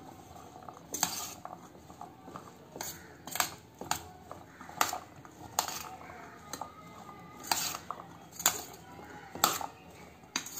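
A metal spoon stirring chickpeas and chopped vegetables in a steel bowl, clinking against the bowl about once a second at uneven intervals, with softer scraping and shuffling between the clinks.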